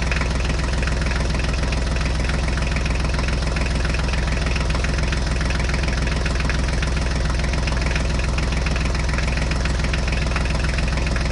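Tractor engine running steadily: an even low engine note with a fine, rapid pulse, with no change in speed.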